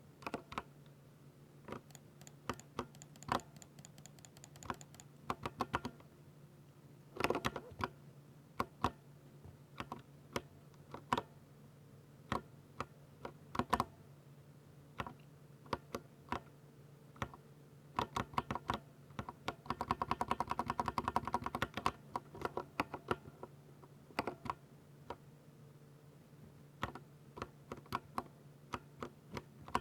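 Typing on a Ducky 60% mechanical keyboard with silver switches: irregular keystrokes, with a fast flurry of rapid key presses about twenty seconds in.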